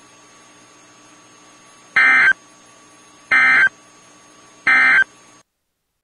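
Three short buzzy bursts of SAME digital data tones from a NOAA Weather Radio broadcast, about a second and a half apart, each a fraction of a second long. They are the EAS end-of-message code closing the warning. Under them runs a steady low hiss and hum from the radio feed, which cuts off shortly before the end.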